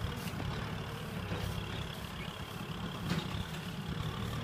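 Farm tractor's diesel engine running steadily under load as it hauls a loaded trailer through mud, with a few faint clatters.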